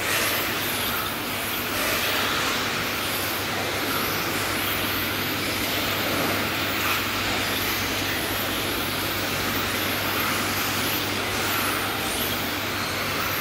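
Radio-controlled racing cars running laps on a track: a steady noise with faint high motor whines rising and falling as the cars pass.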